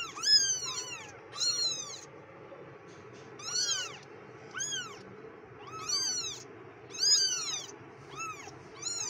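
Young kittens mewing: short, high-pitched calls that each rise and fall in pitch, coming about once a second, now and then two at once from different kittens.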